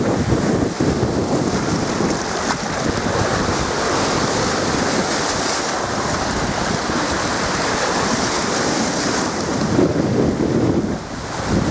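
Small waves on Lake Huron washing and breaking against the shore, mixed with strong wind buffeting the microphone.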